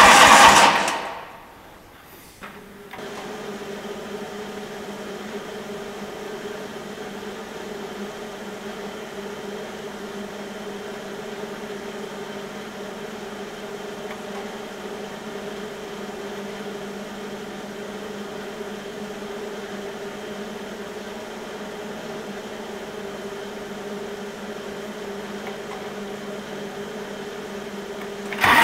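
Starter cranking of a cold Kubota diesel cuts off in the first second. After a click, a steady low hum with a faint whine follows.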